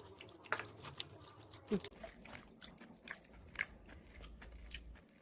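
Close-up chewing and crunching on roast chicken with crispy scorched rice (nurungji): irregular crisp bites and mouth noises, with a brief low vocal sound just under two seconds in.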